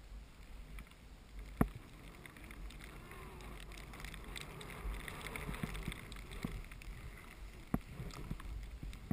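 Skis hissing through deep powder snow, growing louder after a couple of seconds, with a few sharp knocks along the way and a low rumble of wind on the microphone.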